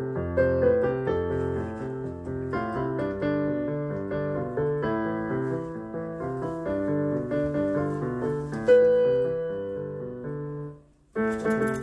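Yamaha PSR-E463 portable keyboard played with both hands, a melody over moving low notes. The playing stops briefly about eleven seconds in and then starts again.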